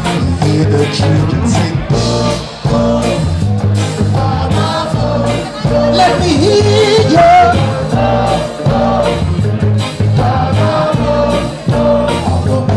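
Live ska band playing loudly with a steady beat, a singer's voice over the band.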